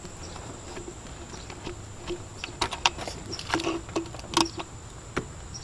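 Scattered light clicks and taps of hands turning and wiggling a threaded line fitting loose on a power steering pump.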